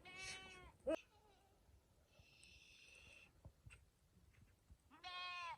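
Two short bleats from small livestock, one right at the start and one near the end, with a sharp click about a second in.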